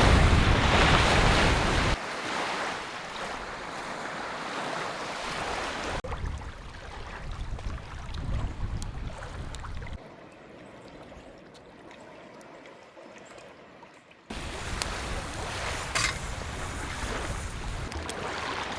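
Lake Superior surf washing onto a sand beach, with wind noise on the microphone. The sound changes abruptly every few seconds and is quieter for a stretch in the middle.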